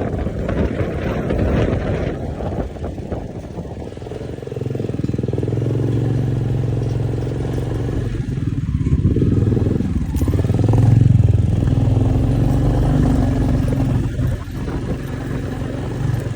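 Motorcycle engine running at a steady speed while riding, with wind and road noise; the engine's low, even note comes up clearly about a quarter of the way in and is loudest a little past the middle.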